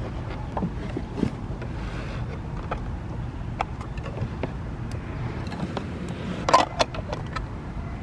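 Steady low wind rumble on the microphone, with scattered light clicks and knocks as hands handle the ABS plastic hull and cover of an RC bait boat, a small cluster of them about six and a half seconds in.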